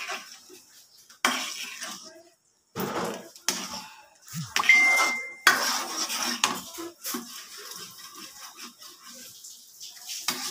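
Spoon scraping and knocking against a wok as thick sweet and sour sauce is stirred towards the boil, in irregular clatters. A short steady beep sounds about five seconds in.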